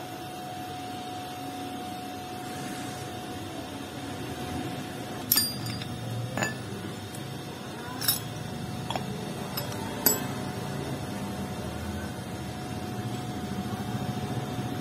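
Metal motorcycle clutch parts clinking as they are handled and set down: four sharp clinks between about five and ten seconds in, over a faint steady hum.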